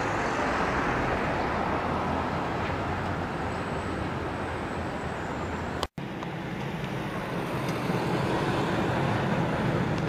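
Steady urban street and traffic noise, with a brief dropout to silence about six seconds in.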